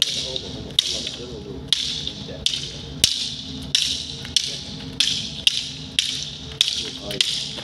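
Wooden sticks clacking together as two men fence with them, about a dozen sharp strikes at an uneven pace of one to two a second.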